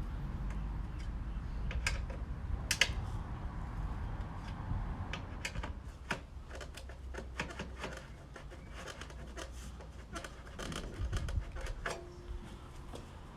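Irregular metallic clicks, taps and clinks of hand tools and fittings as the exhaust is unbolted from a Ducati Multistrada 1260. A short squeak slides down in pitch near the end.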